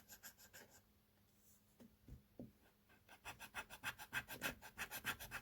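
Faint, rapid scratching and clicking as a small phone speaker's wires are handled and tested. The clicks are sparse at first, then come at about eight to ten a second and grow louder from about three seconds in. The speaker gives no sound: it does not work.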